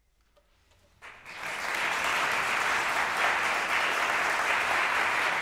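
Near silence, then audience applause breaks out suddenly about a second in, swells quickly and holds steady.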